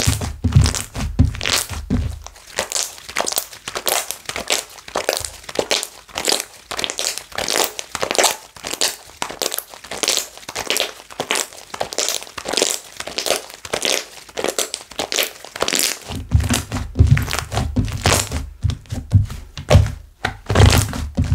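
Slime being squished, pressed and stretched by hand, giving a rapid, irregular string of small clicks and pops. Heavier low thuds come at the very start and again from about three-quarters of the way in.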